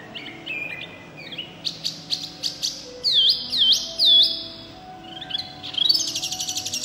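Caged Chinese hwamei singing loudly: a varied run of clear whistled phrases, with three loud swooping whistles a little after halfway and a fast rattling trill near the end.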